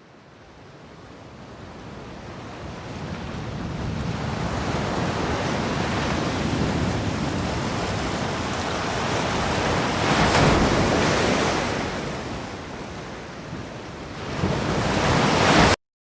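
Sea surf and wind swelling gradually from near nothing, with a surge of breaking waves about ten seconds in and another near the end, then cut off abruptly.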